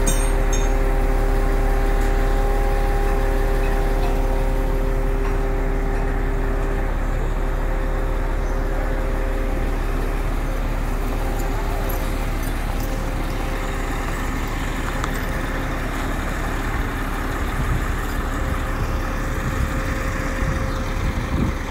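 Heavy diesel truck engine running steadily with a deep rumble, with a steady hum over it that fades away about a third of the way in.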